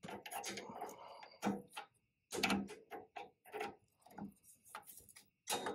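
Irregular clicks and metallic clinks of hand wrenches and brake-line retaining clips as a truck's front brake line fittings are worked loose and swapped.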